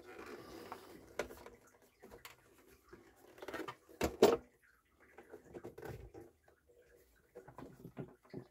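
Scattered handling clicks and knocks from a turntable chassis being moved and worked on, with two louder knocks close together about four seconds in.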